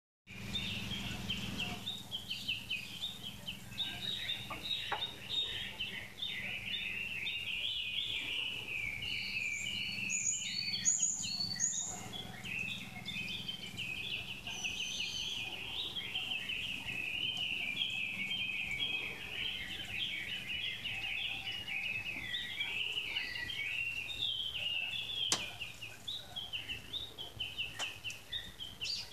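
Dense chorus of songbirds, many short chirping notes overlapping without a break, with a few higher, thinner notes about ten to twelve seconds in.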